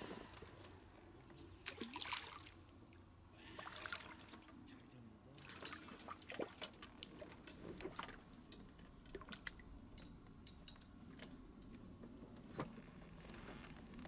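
Faint water sounds: brief splashes, drips and small sharp clicks, scattered irregularly, like a small hooked fish and tackle being handled at the water's edge.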